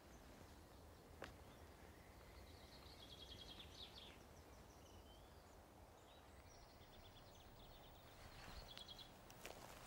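Quiet woodland background with faint songbird song: a short trilled phrase about three seconds in, repeated about eight seconds in, and a single faint click a little after one second in.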